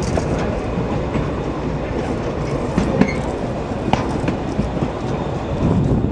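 Narrow-gauge railway coach rolling along the track, heard from inside an open-sided carriage. Its wheels on the rails make a steady rumble, with sharp clacks about three seconds in and again about a second later.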